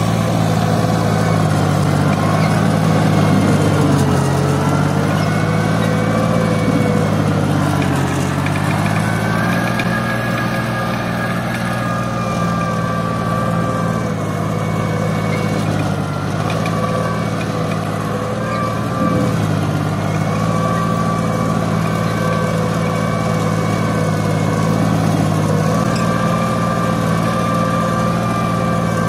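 Türk Fiat 480 tractor's turbocharged diesel engine running under heavy load while pulling a three-furrow plough through hard, dry ground. Its pitch sags and recovers several times as the plough digs in, the engine straining.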